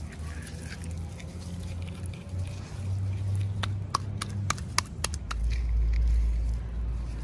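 Hands handling miniature toys and their packaging: a quick run of about seven sharp clicks and taps about halfway through, over a low rumble of handling noise that grows louder near the end.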